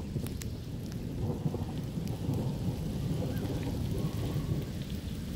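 Rainstorm sounds: light rain beginning to fall over a steady low rumble.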